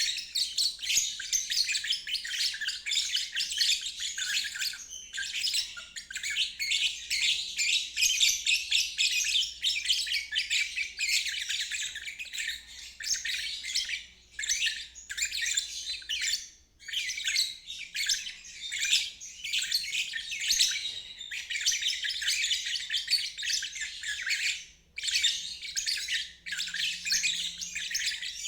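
Lovebird singing ngeriwik: a long, rapid, high-pitched chattering trill that runs almost without break, with a few brief pauses.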